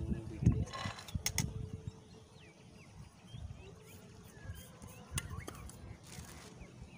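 Small bird chirps outdoors, with light handling noises from the cookware: a few sharp clicks and brief rustles as the bowl and pot lid are moved.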